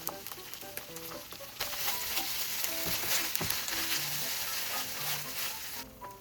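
Food frying in a pan, sizzling loudly from about a second and a half in and cutting off abruptly near the end, with lighter crackling before that.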